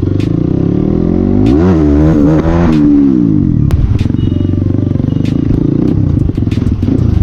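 CX250R motorcycle engine idling loudly through an open exhaust with the dB killer removed. About a second and a half in it is revved once, the pitch climbing and falling back to idle within about two seconds.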